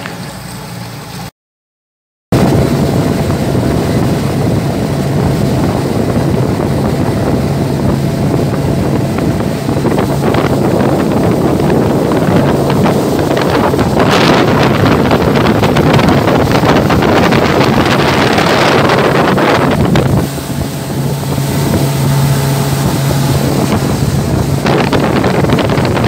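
Motorboat running at speed on open sea: a steady low engine drone under loud rushing water and wind buffeting the microphone. It cuts in after a short moment of silence about two seconds in.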